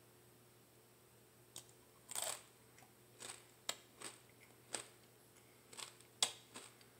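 A person chewing a Paqui One Chip Challenge Carolina Reaper tortilla chip with the mouth closed. Quiet, irregular crunches start about a second and a half in.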